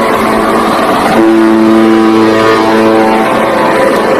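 Cargo ship's horn sounding in long, steady, loud blasts. One blast ends and the next begins about a second in.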